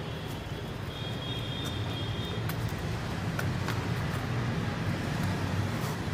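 Hands pressing and patting loose potting soil down in a plastic bucket, giving faint scattered crackles, to settle it and close air pockets. Under it runs a steady low background rumble.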